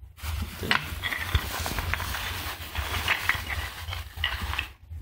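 Plastic bags rustling and crinkling as hands dig through a pile of cut antler slabs, with a few clicks and knocks as the pieces shift against each other.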